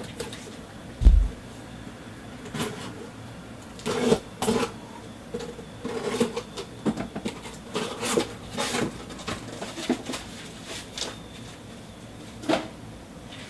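Shrink-wrapped cardboard boxes of trading cards set down on a stack, with a dull thump about a second in, followed by scattered light knocks and clicks of handling.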